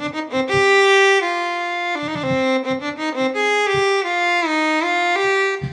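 Audio Modeling SWAM Solo Strings v3, a physically modelled solo bowed string played from a MIDI keyboard: a short melodic phrase of about ten notes stepping up and down, mixing detached notes with connected legato notes and brief sliding glides between some of them.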